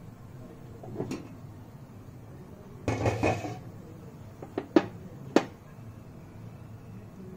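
Kitchen utensils and cookware knocking: a light knock about a second in, a short rattling clatter around three seconds, then three sharp clinks in quick succession, the last two loudest.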